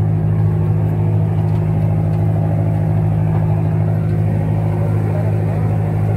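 Steady low hum of the Weesam Express ferry's diesel engines idling at the dock, heard close by at the boarding door.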